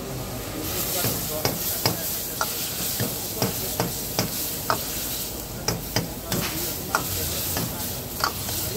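Long steel ladle stirring and striking a wok in sharp, uneven clinks about twice a second, over the sizzle of vegetable manchurian balls frying in sauce on a high flame.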